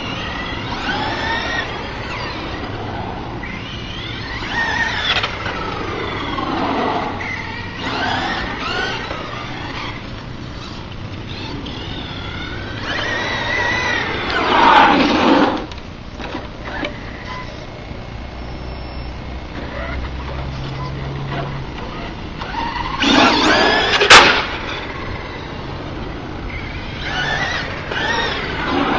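Brushless motor of an RC truck, a Tacon 3930kv driven by a Hobbywing EzRun 35A ESC, whining up and down in pitch as the truck accelerates and slows again and again. It is loudest in two swells, about halfway through and about four-fifths in, and the second one ends with a sharp click.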